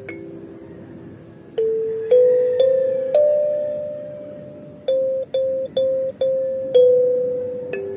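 Wooden kalimba played with the thumbs: single metal tines plucked one after another in a slow melody, each note ringing on and fading. There is a short pause in the first second and a half, and a quick run of four repeated notes past the middle.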